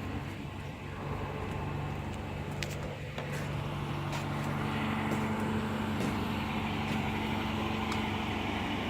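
Steady low mechanical hum like an engine running, with a second humming tone joining about halfway through and a few faint clicks.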